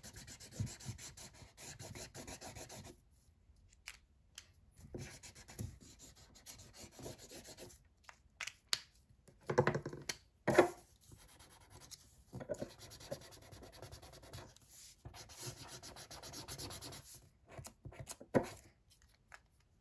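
Felt-tip marker rubbing and scratching across paper as colour is filled in, strongest for the first few seconds and then in short strokes. A few louder knocks and clicks about halfway through.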